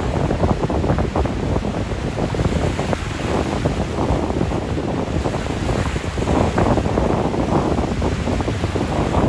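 Choppy waves surging and splashing against a pier breakwall, mixed with strong wind buffeting the microphone in a steady, rumbling rush.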